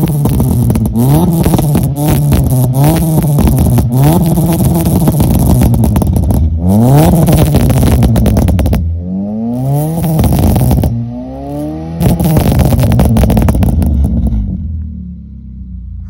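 Suzuki Swift engine free-revved repeatedly through a custom exhaust, the revs climbing and falling again and again, with pops and crackles from the tailpipes. One rev near the middle goes higher and longer, and a held rev late on drops back toward idle near the end.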